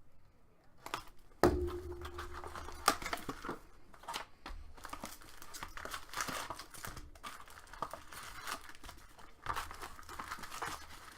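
A hobby box of trading card packs being unwrapped and opened by hand: crinkling and tearing of plastic wrap and packs, with a thump about a second and a half in.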